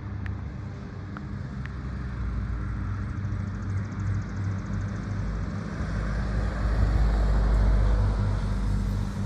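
Steady low rumble of a passing vehicle over a low hum, swelling about seven seconds in and then easing. A few light taps sound in the first two seconds.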